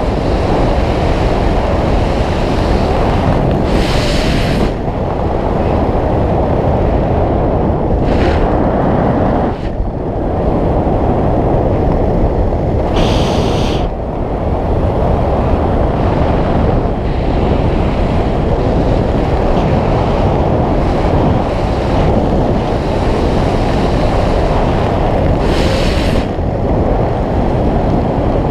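Air rushing over a skydiver's camera microphone: a loud, steady rush of wind buffeting, with a few short hissing surges.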